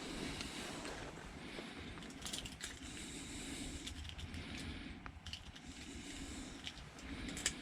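Faint scattered clicks and rustling of pliers working a hook out of a bluegill, over a low steady rumble.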